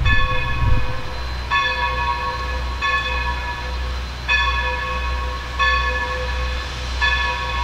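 Steam locomotive bell on New Hope & Ivyland 2-8-0 Consolidation #40 ringing steadily, one strike about every second and a half, over a steady low rumble.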